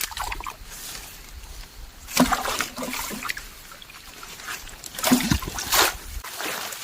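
Shallow muddy water in a flooded rice paddy splashing and sloshing as someone wades and gropes for fish, with sharper splashes about two seconds in and twice around five seconds in.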